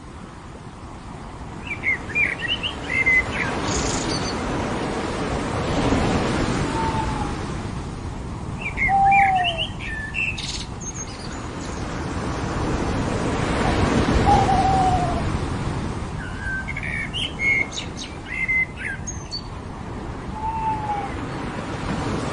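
Ocean waves washing onto a beach, swelling and fading about every eight seconds, with birds chirping in short runs of quick high notes and giving an occasional lower, falling whistle.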